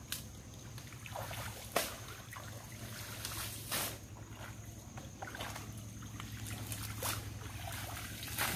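Splashing and sloshing of feet and hands wading and groping through shallow muddy water, with several sharper splashes, over a low steady hum.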